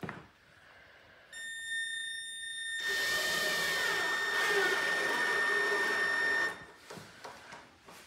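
Cordless drill-driver with a screwdriver bit driving a half-inch wood screw into the wooden underside of a table. The motor whine starts about a second in, grows much louder as the screw goes in, and stops about six and a half seconds in.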